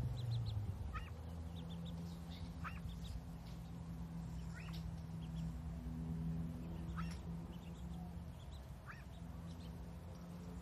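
Mallard ducklings peeping: thin, high calls about every two seconds, with fainter chirps in between, over a low steady hum.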